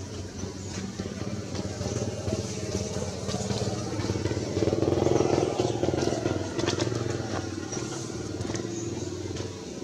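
A motor vehicle's engine running, growing louder to a peak about halfway through and then easing off.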